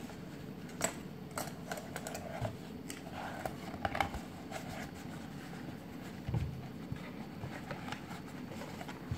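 Scattered light clicks, taps and scraping from a cardboard takeout box and a canister being handled on a table, with one dull thump about six seconds in.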